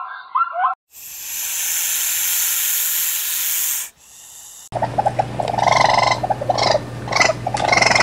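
A zebra's call breaks off in the first second; then a snake hisses, one long steady hiss of about three seconds; then, from about five seconds in, a hedgehog makes a run of short, irregular calls over a steady low hum.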